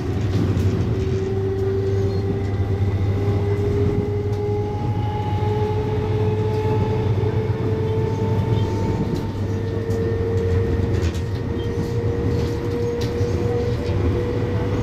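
Traction motors of an MTR East Rail Line MLR electric train, heard from inside the passenger car, whining in a slow steady rise of pitch as the train accelerates. Under the whine runs a steady low rumble from the running gear.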